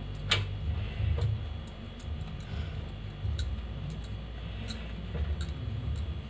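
Scattered light clicks and taps as bread pinwheel slices are set down one at a time on an oiled metal baking tray, the sharpest just after the start. A low steady hum sits underneath.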